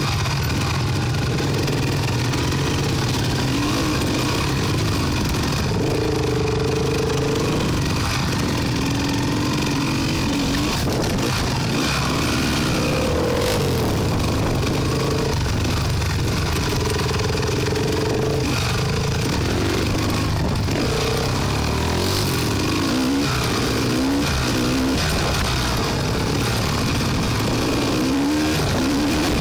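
Off-road quad bike engine running while riding a dirt trail, its pitch repeatedly rising and falling with the throttle over a steady low drone.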